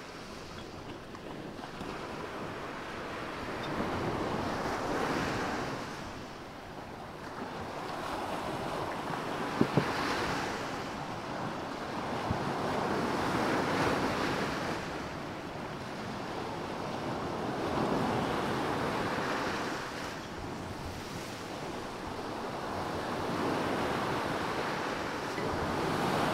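Sea waves washing in on a pebble shore, the noise swelling and ebbing every four or five seconds. Two short sharp clicks sound about ten seconds in.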